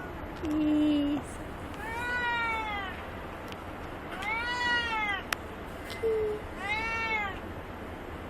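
A cat meowing three times, each meow about a second long, rising then falling in pitch. Near the start there is a short, low, steady tone, louder than the meows, and a sharp click about five seconds in.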